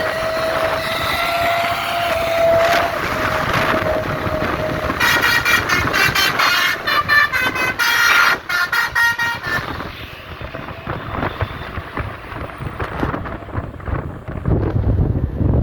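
Bus air horns sounding: one long, steady horn note for about four seconds. Then, about five seconds in, a basuri musical horn plays a quick run of short, choppy multi-tone blasts for about four seconds, in the 'telolet' style. Traffic noise and a low rumble follow near the end.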